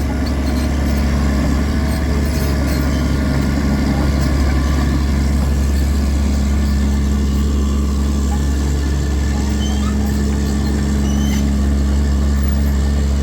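Caterpillar 336D2 excavator's diesel engine running at a steady, even speed.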